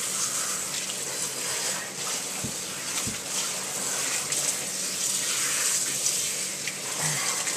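Kitchen faucet's pull-down spray head running steadily, the water splashing through shampoo-lathered hair into the sink as the shampoo is rinsed out.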